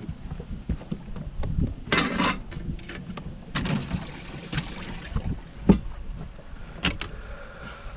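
Wind buffeting the microphone, with knocks and rattles of fishing gear being handled in an aluminum boat; a sharp thump about two-thirds of the way in is the loudest sound.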